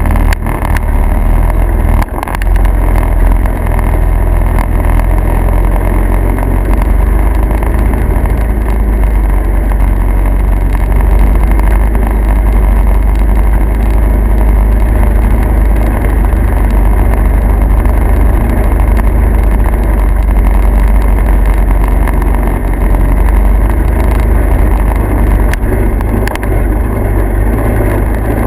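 Steady low rumble of a vehicle on the move, engine and road noise running without a break.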